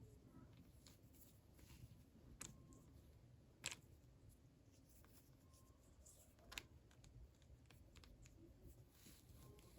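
Near silence with a few faint, sharp clicks and light taps, three of them a little louder, about a second and a half to three seconds apart: small plastic toy pieces and packaging being handled.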